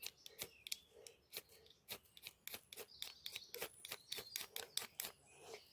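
Fire steel (ferro rod) struck over and over with a scraper to throw sparks onto dry tinder: a quick, irregular run of short, sharp rasping scrapes, about three to four a second.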